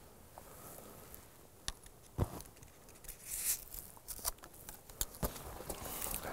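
Scattered sharp knocks and brief rustles of a bowhunter moving slowly through dry grass and handling his bow and gear.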